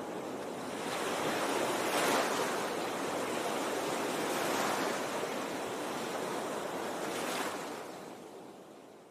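A steady rushing noise like ocean surf, swelling about every two and a half seconds, then fading out near the end.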